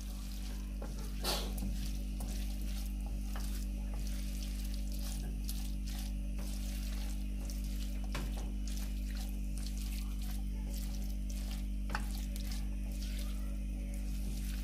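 Chicken filling sizzling gently in a nonstick wok while a plastic spatula stirs and scrapes it, over a steady low hum.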